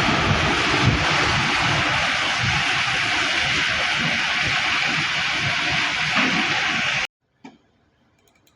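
Concrete mixer truck at work: a steady rushing, churning noise over a low rumble. It cuts off abruptly about seven seconds in, followed by near silence and a single click.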